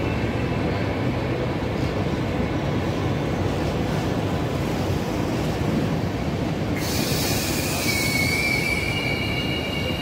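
Deutsche Bahn Intercity coaches rolling along a curved platform track, with a steady low rumble. About seven seconds in, a high wheel squeal and hiss set in.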